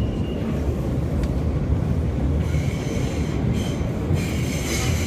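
R160 subway car running, heard from inside: a steady low rumble of wheels on rail, with a high-pitched squeal of several steady tones joining about halfway through.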